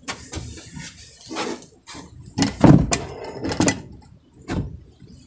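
Cast net being handled: irregular knocks and rustles, several in a few seconds.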